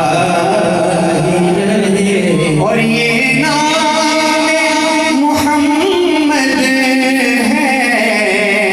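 A man singing an Urdu naat unaccompanied into a microphone, drawing out long held, ornamented notes in slow phrases.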